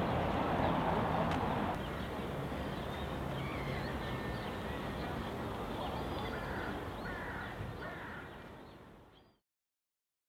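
Steady low rumble of a boat under way, with birds cawing over it: several harsh caws, three in quick succession about two thirds of the way in. The sound then fades out to silence near the end.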